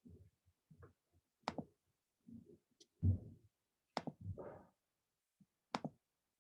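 A few scattered sharp clicks and knocks, three of them crisp, with short low thumps between them, the loudest thump about three seconds in.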